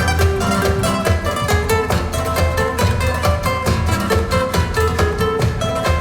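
Recorded music played back over a high-end hi-fi system, busy with many short, quickly changing notes over a strong, steady bass.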